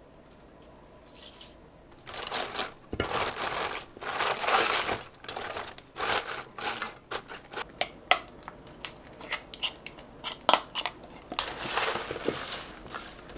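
Gloved hands tossing and rubbing a bunch of green onions in a stainless steel bowl, coating them with fish sauce and red pepper seasoning for green onion kimchi: a rustling, crinkling scrunch broken by small clicks, starting about two seconds in.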